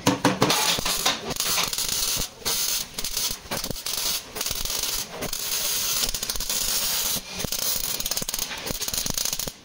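Arc welding on the Prado's damaged front frame steel: a continuous crackling sizzle, broken by several short pauses as the weld stops and restarts.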